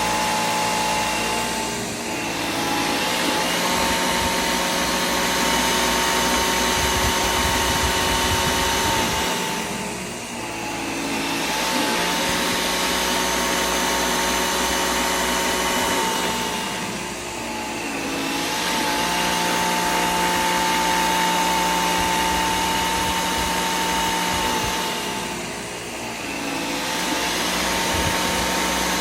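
Bissell Air Ram 1984 cordless vacuum running: a steady motor whine over an airflow rush, with a short dip in level and pitch every seven or eight seconds.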